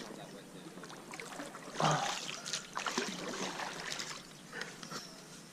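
Water splashing and trickling at the side of a kayak in irregular spurts, the loudest about two seconds in.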